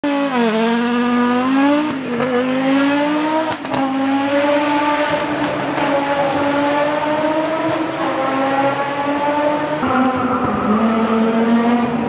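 Audi Sport quattro S1 rally car's turbocharged five-cylinder engine launching from a standing start at full throttle, revs climbing with two quick upshifts in the first four seconds, then pulling hard at high revs as it drives away.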